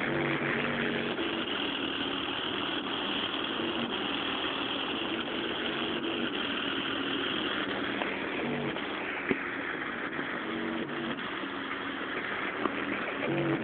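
Bass-heavy music played loud through a JBL car-audio subwoofer system, heard inside the car: a deep bass line stepping from note to note about every half second under a heavy wash of distortion hiss. Two sharp clicks come in the second half.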